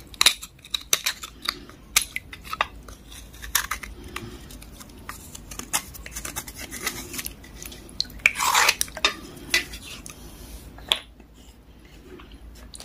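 Small knife scraping the softened outer layer off a water-soaked grey block, with repeated short scrapes and clicks of the blade and one longer scrape past the middle; the blade also knocks against a steel bowl.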